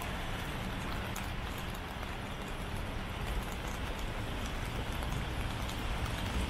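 Steady rain falling: an even hiss with faint patter, over a low steady rumble.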